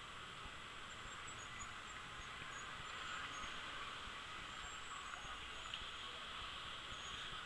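Faint, steady roar of a departing Boeing 757-200's Rolls-Royce RB211 turbofan engines, heard from a distance after the climb-out.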